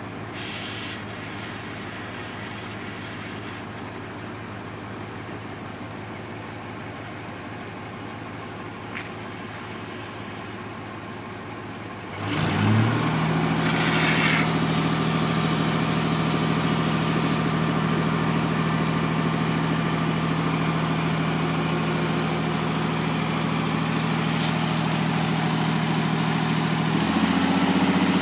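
Air-cooled six-cylinder Deutz diesel of a 1977 Magirus-Deutz fire truck idling, then revving up sharply about halfway through to drive its built-in centrifugal pump, holding a steady higher speed and rising again near the end. Water hisses from the hose nozzle once the pump is running.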